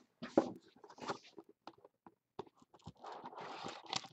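Cardboard trading-card box being handled and opened on a table: scattered taps and scrapes, then about a second of steady rustling and sliding near the end.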